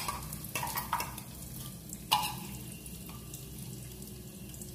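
Cumin and mustard seeds sizzling in hot mustard oil in a stainless-steel pan, with a few sharp pops as the mustard seeds crackle, the loudest about two seconds in.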